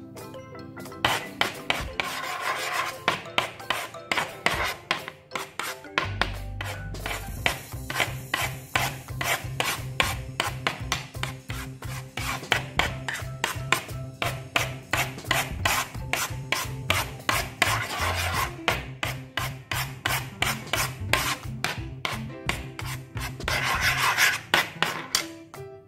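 Metal spoon stirring and scraping a runny, foamy dish-soap slime mixture, wet rubbing and scraping in quick repeated strokes. Background music with a low repeating bass comes in about six seconds in.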